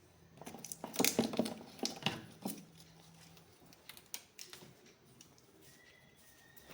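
A quick run of light clicks and knocks over the first few seconds, thinning to scattered ticks.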